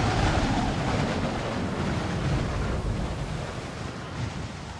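Wind buffeting the microphone over the rush of breaking waves, heard from the deck of a sailing yacht at sea in a strong wind. The sound slowly weakens and fades out near the end.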